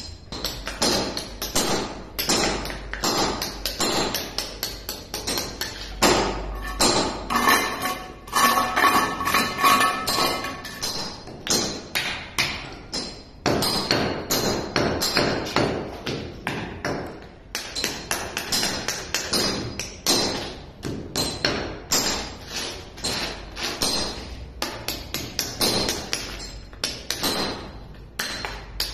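Hand hammer striking a steel chisel to chip concrete at the base of a wall: quick, repeated metallic taps, several a second, with short pauses.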